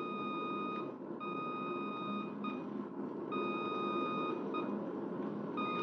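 Low-frequency radio range signal in a pilot's headset: a steady tone keyed in Morse N, dash-dot, repeating about every two seconds over a steady low background noise. The aircraft is off the on-course beam, inside the N quadrant.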